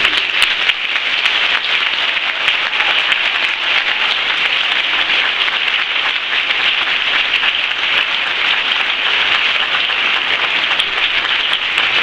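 Audience applauding steadily, starting as the choir's final chord ends.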